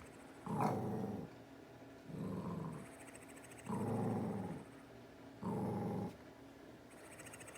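Snoring: four rattling snores about a second and a half apart, each lasting under a second.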